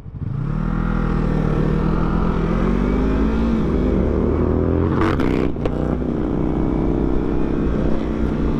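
Sport motorcycle engine pulling away from a stop, rising in pitch for a few seconds, dropping briefly at a gear change about four seconds in, then running steadily at cruising speed.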